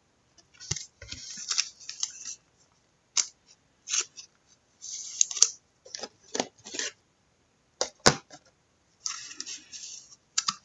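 Trading cards being handled: several short swishes of cards sliding against each other, with sharp clicks in between.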